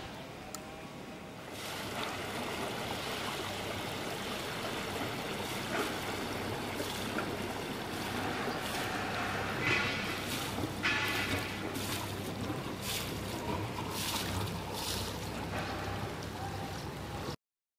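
A steady wash of wind and water noise over a low, even engine hum, with a few short, sharp high sounds around the middle; it cuts off abruptly near the end.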